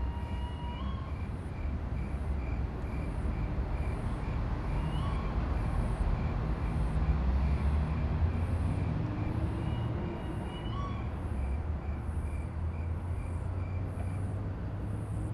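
Outdoor night ambience: a steady low rumble, with a faint regular ticking about twice a second and a short rising call every few seconds. A low hum rises in pitch about two-thirds of the way through.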